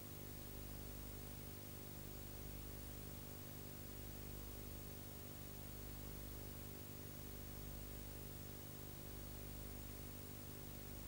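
Faint, steady electrical hum, a stack of unchanging tones, over a constant hiss. Nothing else happens.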